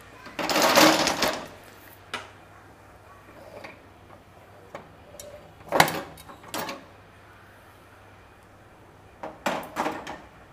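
Pressure cooker being opened: a short hiss of leftover steam as the weight is lifted off the vent, then metal clicks and clanks as the lid is twisted loose and lifted off. There is one sharp clank about six seconds in and a few more near the end.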